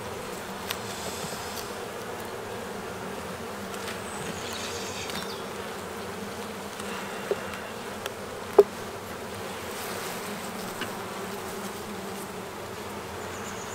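Honeybee colony humming steadily from an opened hive, with a few short sharp cracks as a hive tool prises a frame loose. The loudest crack comes about eight and a half seconds in.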